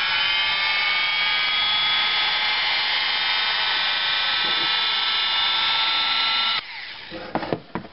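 1949 Oster Osterett two-beater electric hand mixer running with its beaters spinning free in the air. It gives a steady high motor whine that rises in pitch as it spins up at the start and cuts off about six and a half seconds in. A few light clicks and knocks follow near the end.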